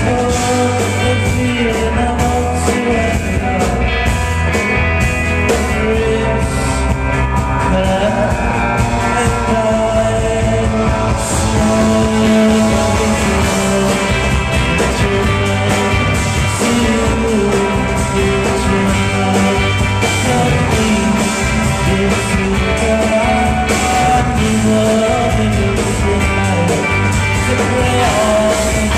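Live psychedelic rock band playing loudly, with electric guitars over a drum kit and a male voice singing.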